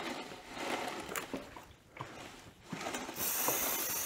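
Clicks and handling clatter of tools and parts, then about three seconds in a steady hiss starts: an aerosol can of lubricant spraying onto the dirt bike's pivot points.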